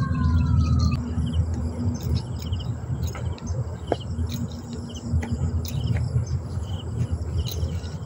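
Insects, crickets among them, chirping in short repeated calls, with a few bird calls, over a steady low hum.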